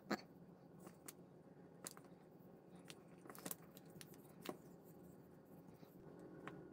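Faint light clicks and taps, roughly one a second, from a paintbrush and a small plastic model engine being handled while a wash is brushed on, over quiet room tone.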